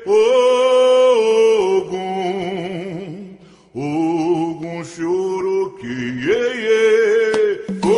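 Slow, chant-like singing of an Umbanda ponto to Ogum: long held vocal notes with a wavering pitch. The voice fades briefly about halfway through, then the held notes return.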